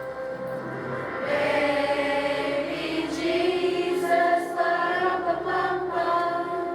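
Middle school choir singing together over a held accompaniment, the voices growing louder about a second in.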